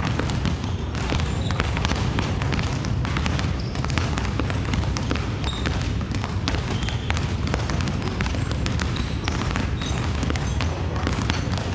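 Several basketballs dribbled at once on a hardwood gym floor: a dense, continuous run of overlapping bounces.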